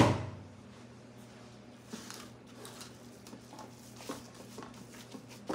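A dish set down hard in a kitchen sink, a sharp clatter whose ringing dies away within half a second, followed by faint scattered clicks and rustles of kitchen handling over a steady low hum, with one small knock near the end.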